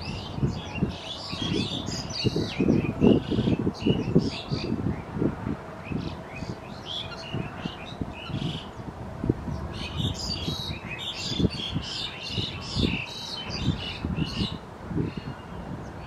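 A flock of common coots calling: many short, high-pitched chirping calls overlapping, thickest in two spells, over a scatter of low, dull knocks.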